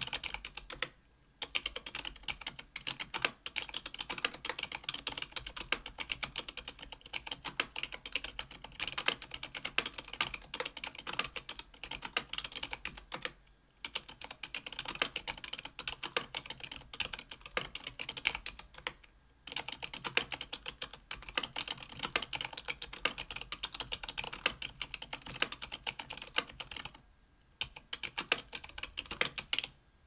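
Typing on a JetStorm mechanical keyboard with stock, unlubed Aqua Zilent 67 g silent tactile switches, an aluminium plate and GMK keycaps. Keys are pressed in fast continuous runs with a few short pauses.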